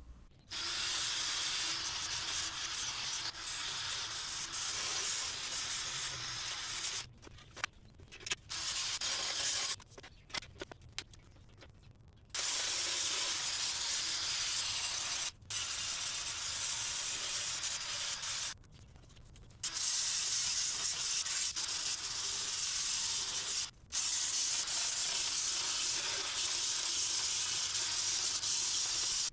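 Wire cup brush spun by a cordless drill, scouring old paint off a street light's metal housing: a steady scratchy whir in long runs, stopping and restarting several times with pauses of up to about two seconds.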